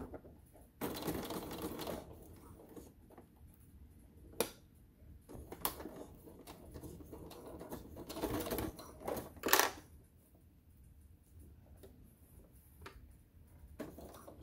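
Electric sewing machine stitching through layered fabric in short runs, one about a second in and a longer one around eight seconds in, with a few sharp clicks in between.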